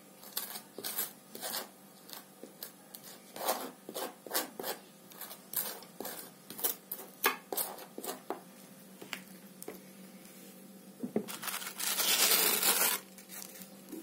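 Table knife scraping and tapping across crisp wafer cake layers, a run of short rasping scrapes and clicks. About twelve seconds in comes a louder rasping rustle lasting about a second.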